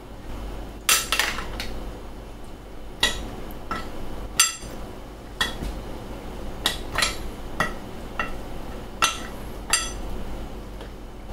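Metal spoons clinking against bowls and a dish while chicken pieces are tossed in flour: a dozen or so short ringing clinks at irregular intervals.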